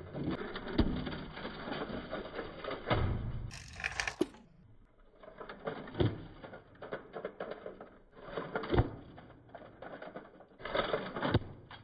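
Irregular clicking and rattling, with a sharp knock every few seconds: a diecast model car rolling over rough concrete and hitting a styrofoam block. A brief hissy burst comes about three and a half seconds in.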